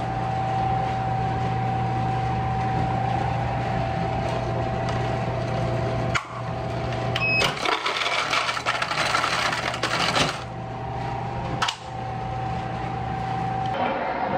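Microwave oven humming steadily, then a click as it stops. A short electronic beep follows, then about three seconds of loud rushing noise, and another click before the hum starts again.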